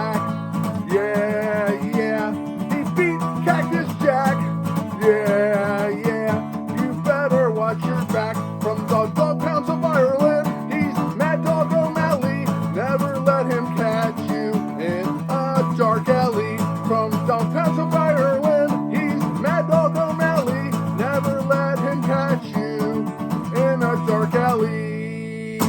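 Country-style song in an instrumental passage: strummed acoustic guitar under a wavering lead melody line. The music stops right at the end.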